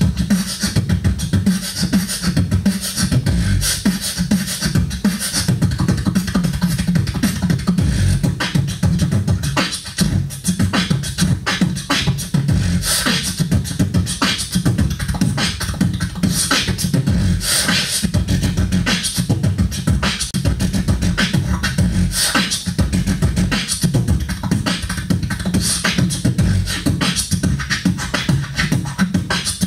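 A beatboxer performing into a handheld microphone: an unbroken vocal beat of heavy bass under quick, sharp high clicks and hissing hits.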